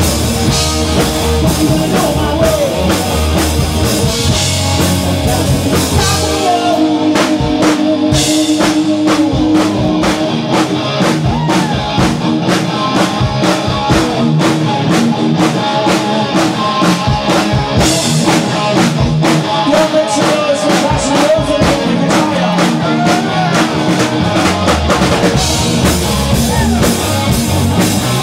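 A rock band playing live on electric guitar, bass guitar and drum kit. About six seconds in the cymbal wash drops away, leaving steady drum hits under a held guitar note; the cymbals come back near the end.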